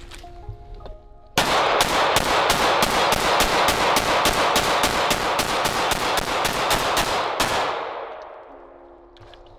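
Rapid string of semi-automatic pistol shots, about four a second, starting abruptly a little over a second in and ending about six seconds later, the sound dying away gradually.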